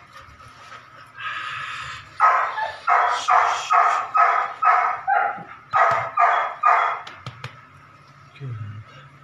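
Belgian Malinois puppy barking in a quick run of about eleven short barks, roughly two a second, for about five seconds, then stopping.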